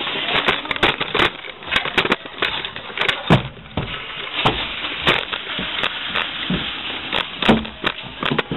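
Airsoft guns firing in an indoor arena: irregular sharp cracks, some single and some in quick clusters, over a steady background hiss.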